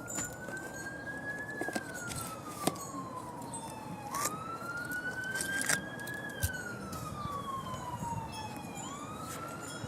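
Emergency-vehicle siren wailing, a single tone that rises and slowly falls in long sweeps of about four to five seconds each, with a few light clicks and knocks alongside.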